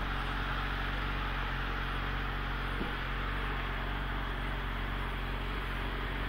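Steady highway traffic noise, with a low, steady engine hum underneath.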